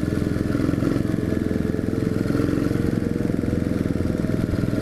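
Yamaha XT 250's single-cylinder four-stroke engine running steadily under way at cruising speed, heard from on board the bike. The engine is freshly rebuilt and being ridden gently to break it in.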